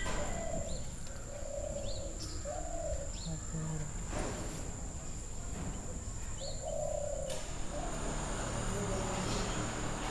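A dove cooing in a run of short low coos, with a few quick high chirps from small birds and a steady high whine behind them.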